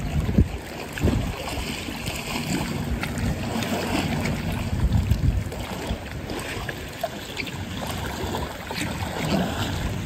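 Sea water splashing and lapping as a person swims breaststroke close by, with gusty wind rumble on the microphone.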